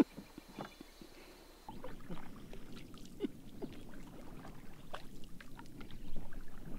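Water sounds of a canoe being paddled: small splashes, drips and lapping against the hull, busier and louder from about two seconds in. A single sharp knock right at the start.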